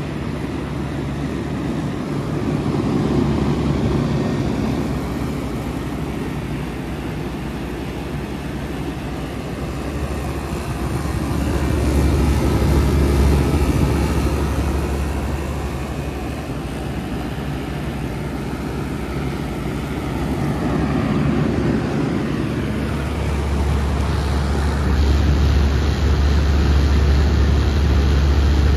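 Bard wall-mount heat pump running in heat mode: a steady low compressor hum under the even rush of its outdoor fan. The level swells and falls a few times.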